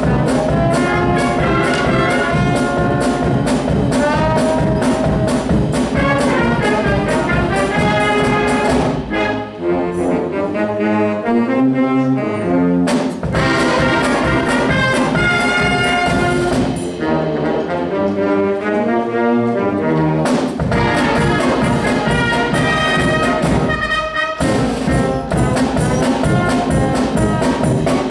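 Wind band playing, brass carrying the tune over a steady beat. About ten seconds in, and again near twenty seconds, the beat drops out for short, softer passages in the lower brass before the full band comes back.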